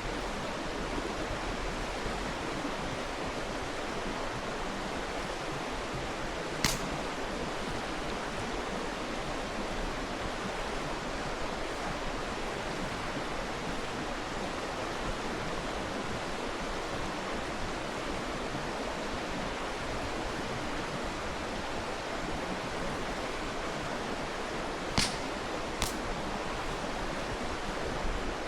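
Mountain stream rushing steadily, with three sharp pops from the burning campfire wood: one early and two close together near the end.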